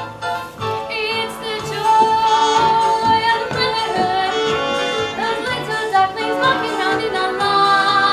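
A young female voice singing long held notes in a musical-theatre song, over instrumental accompaniment.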